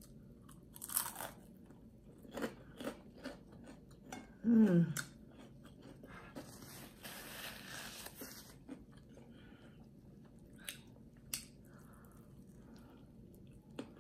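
Close-up crunching and chewing of crisp fried onion rings, with sharp crackles scattered through. About four and a half seconds in comes a short "mmm" hum that falls in pitch, and near the middle a soft hiss lasting about two seconds.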